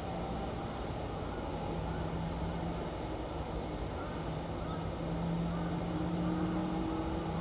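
Steady hiss of the fan motor inside a weather station's aspirated thermometer tube, drawing air up past the thermometer, mixed with a low drone of distant traffic and a few faint bird chirps.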